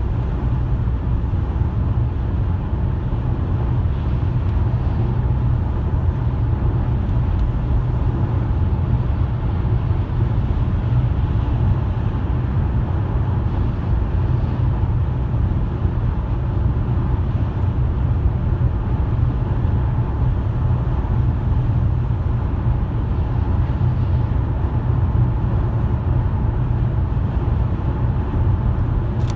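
Steady low rumble of a car driving along the road: tyre and engine noise, even throughout with no sudden events.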